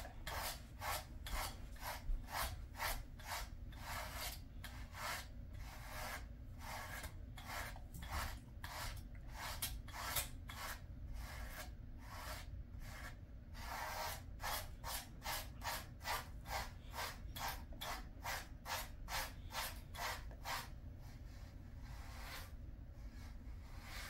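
A pet grooming brush stroking through a Jindo dog's coat: a rasping rub about twice a second in a steady rhythm, stopping near the end.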